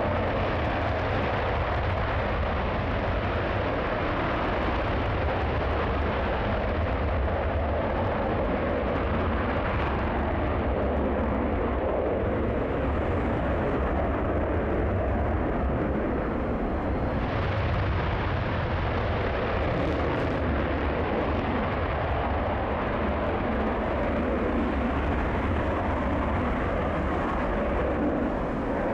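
F-15 fighter jet's twin Pratt & Whitney F100 turbofans running at full afterburner on the takeoff roll: a loud, steady, deep rumble with hiss. About seventeen seconds in the sound abruptly turns brighter and hissier.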